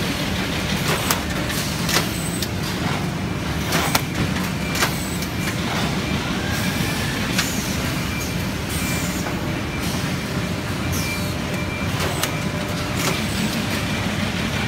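Steady mechanical din of a corrugated carton folder gluer line with in-line packing running, with scattered sharp clacks and a few brief high squeaks.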